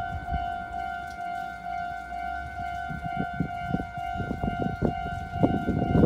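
Japanese railroad crossing warning bell ringing its electronic 'kan-kan' alarm, a steady pulsing tone repeating about twice a second. Irregular low knocks and rumble build up in the second half and are loudest at the very end.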